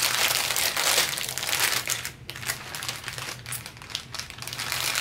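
Clear plastic parts bags full of Lego pieces crinkling as they are handled and shuffled across the table, loudest in the first two seconds and then lighter.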